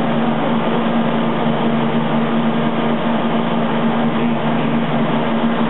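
Steady machine running noise with a constant low hum that does not change.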